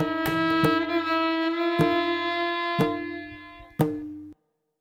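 Instrumental background music: long held melody notes over an irregular percussive beat, cutting off abruptly near the end.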